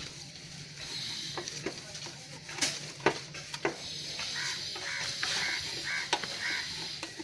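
Rubbing strokes on a rusty chrome-plated mudguard wet with Coca-Cola: a swishing scrub that swells and fades with each slow stroke, with a few sharp clicks. About halfway through, a bird calls about five times in quick succession.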